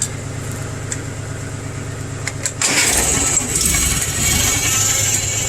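Farmall Cub's four-cylinder flathead engine started, catching a little before three seconds in and then running steadily. A couple of clicks come just before it catches, over a low steady engine hum.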